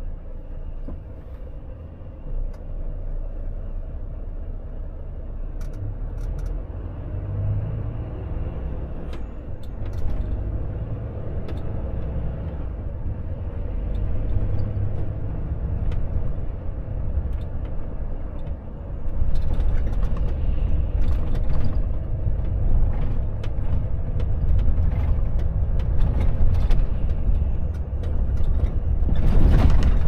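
Volvo FH truck on the move: its diesel engine runs low and steady under road noise, with scattered clicks and knocks. It grows louder about two-thirds of the way in.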